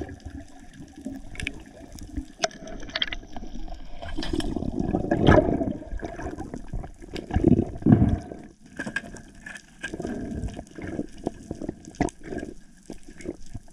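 Seawater sloshing and gurgling around a GoPro in a waterproof housing at the surface, rising and falling in uneven surges, with scattered sharp clicks.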